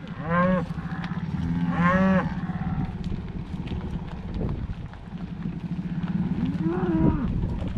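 Cattle in a herd that includes shaggy Highland cattle and calves mooing three times: about half a second in, about two seconds in, and a lower moo near the end.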